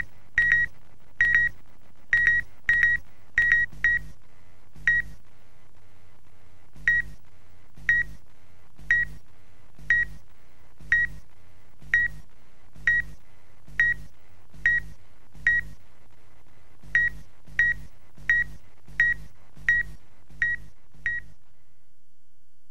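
Short electronic beeps, all at the same pitch, each with a low thud beneath it, over a steady low hum. They come about once a second, more quickly in the first few seconds and again near the end, and stop about a second before the end.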